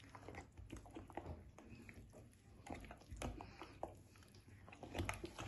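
Faint wet squelching of a spoon stirring thick grated-cassava and egg batter in a glass bowl, with irregular small clicks and scrapes of the spoon against the glass.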